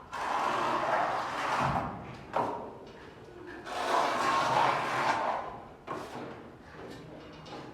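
Two long scraping strokes of a tool drawn across a wall surface, each lasting about a second and a half to two seconds, with a sharp knock between them.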